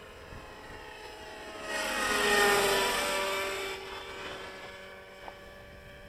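Nitro RC helicopter, a JR Vigor CS with an OS 61 engine and tuned pipe, making a close fly-by. The engine and rotor whine swell to a peak about two seconds in, drop in pitch as it passes, then fade away.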